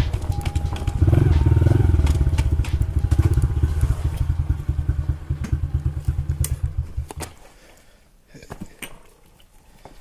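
An engine running with a rapid low pulsing that fades away about seven seconds in.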